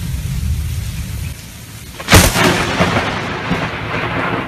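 Close lightning strike: a low thunder rumble, then about two seconds in a sudden loud thunderclap, followed by continuing rolling thunder.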